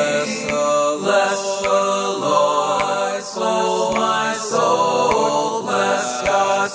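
Several layered male voices, all one singer multi-tracked, singing a hymn in harmony with long held notes, over a strummed acoustic guitar.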